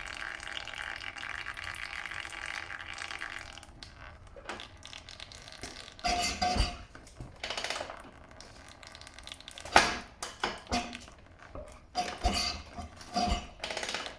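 Engine oil running from the dirt bike's drain hole into a drain pan, a steady trickle that stops about three and a half seconds in. Then scattered clinks and knocks of metal tools and parts being handled.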